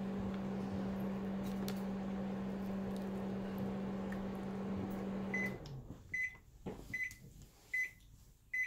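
Microwave oven running with a steady hum, which stops about five and a half seconds in; the end-of-cycle beeper then sounds five short beeps, about one every 0.8 seconds.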